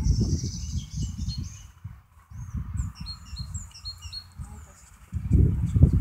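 Small birds chirping in short, quick repeated notes, over a loud, irregular low rumble that eases off in the middle and swells again near the end.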